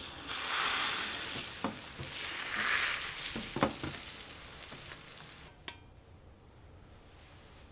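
Egg and chive mixture sizzling in a rectangular copper tamagoyaki pan, with a few sharp taps of wooden chopsticks against the pan. The sizzling cuts off suddenly about two-thirds of the way through, leaving a faint quiet.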